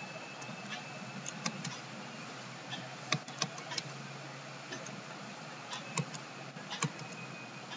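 Scattered sharp clicks of a computer mouse and keyboard, a dozen or so at uneven intervals, over a steady low hum and hiss.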